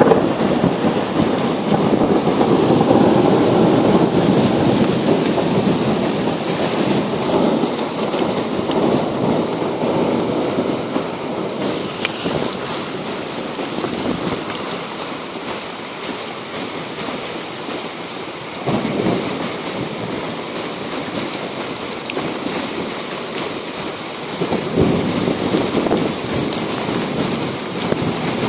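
Heavy rain falling steadily with rolling thunder. A long rumble fades away over the first several seconds, and two more rumbles roll in, one about two-thirds of the way through and one near the end.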